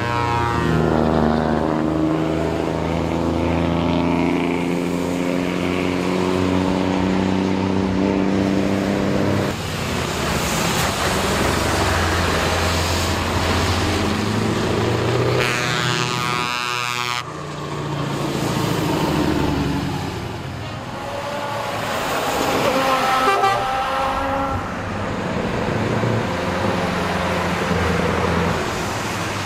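Heavy show trucks driving off past, their engines running loud through open exhaust pipes, with air horns sounding in long blasts, the first held for several seconds.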